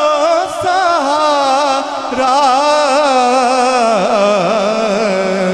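A man singing a naat, a devotional Urdu song in praise of the Prophet, into a microphone. He holds one long ornamented phrase with a wavering pitch that drops lower about four seconds in.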